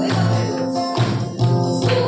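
Nepali Christian worship song, with a tambourine shaken in rhythm over instrumental accompaniment and women's singing.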